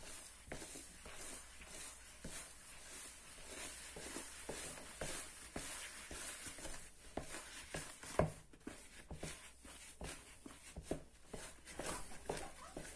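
Spoon stirring flour into soft yeast dough in a plastic bowl: quick, irregular scrapes and taps against the bowl, with one sharper knock about eight seconds in.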